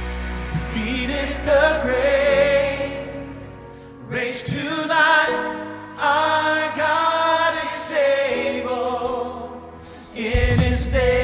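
Church worship music: singing in held, sustained phrases over instrumental accompaniment, with brief lulls between phrases and the low accompaniment coming back in strongly near the end.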